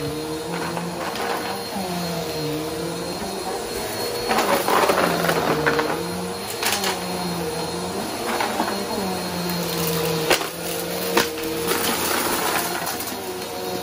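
Upright bagless vacuum cleaner running on carpet, its motor hum sagging and recovering in pitch every second or two as it is pushed back and forth. Sharp clicks and rattles come as confetti and glitter debris is sucked up, loudest about four to five seconds in and again near the end.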